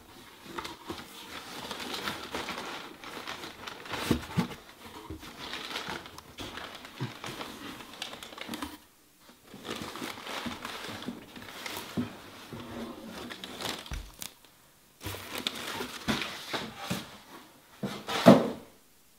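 Cardboard shipping box and packing rustling and crinkling while the contents are lifted out, with small clicks and scrapes throughout. A loud thump comes near the end.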